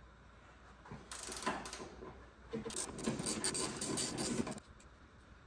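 Ratchet wrench clicking in two spells, a short one about a second in and a longer, louder one of about two seconds, as a 17 mm lower wishbone bolt is backed out.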